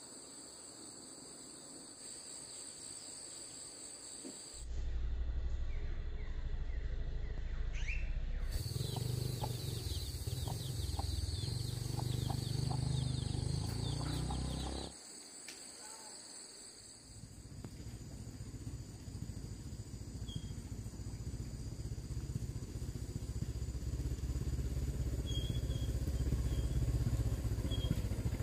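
Steady high-pitched insect buzzing, with a loud low rumble that starts suddenly about five seconds in, drops out around fifteen seconds, and builds up again from about seventeen seconds.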